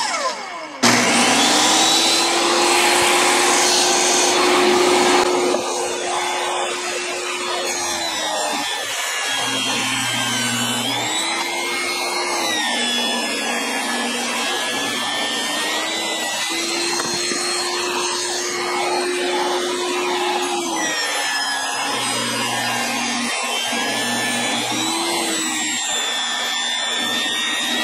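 Portable table saw ripping a 2x12 board into 3-inch strips. The motor starts about a second in and runs with a steady whine; its pitch drops three times as the blade bogs under load in the cut, then rises again.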